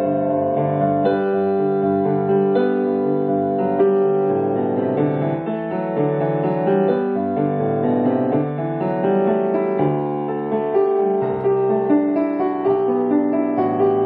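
Background piano music, a run of held notes with no speech.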